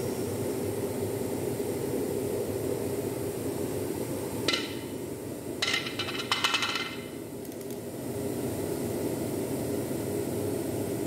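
Metal tools and pump parts knocking and clinking against each other, once and then in a short cluster of ringing metallic knocks, over a steady low hum.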